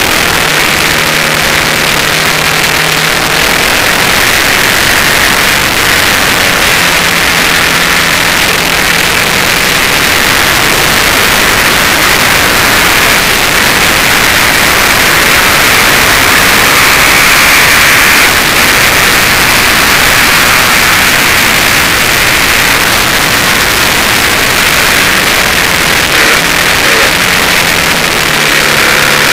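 Suzuki TL1000S at speed on track: wind rushing over the microphone gives a steady loud roar, with the bike's 996 cc 90-degree V-twin engine heard faintly underneath. The roar swells a little about two-thirds of the way through, then eases.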